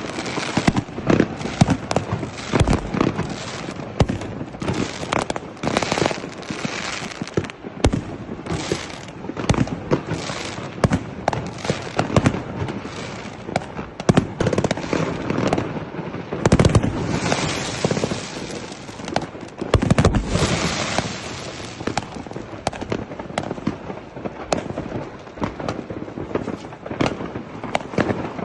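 A large fireworks display: many rockets bursting in rapid, irregular succession, with crackling between the bangs and heavier volleys about halfway through and again a few seconds later.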